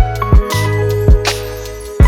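Background music with a steady beat: a low kick-like drum and sharper snare-like hits over held bass notes and chords.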